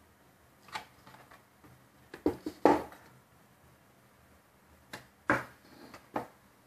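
Scattered light knocks and taps against quiet room tone. The loudest is a quick cluster of three or four about two and a half seconds in, and a few more come near the end.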